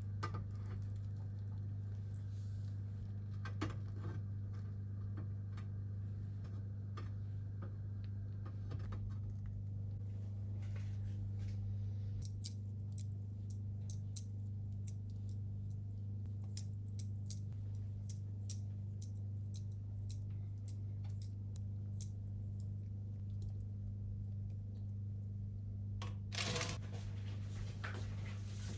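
Light clinks and taps of kitchen work over a steady low hum, with a brief louder rustle near the end.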